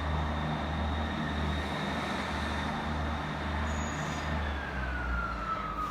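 Class 158 diesel multiple unit's engines throbbing in a slow, even pulse, with a steady high whine and a second whine that slides down in pitch about four seconds in, heard from a distance as the train pulls out.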